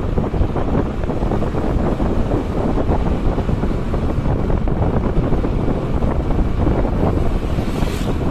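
Wind buffeting the microphone of a camera on a vehicle moving along a road, a steady low rumble with road noise under it. A short hiss rises near the end.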